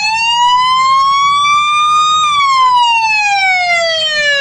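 Police-style siren sounding its slow wail: the tone climbs to a peak about two seconds in, then slides steadily down in pitch for the rest of the time.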